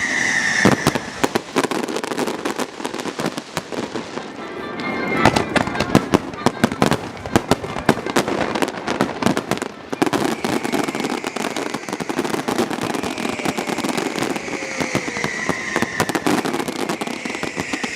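Fireworks display going off: a dense run of sharp bangs and crackles, heaviest about five to seven seconds in.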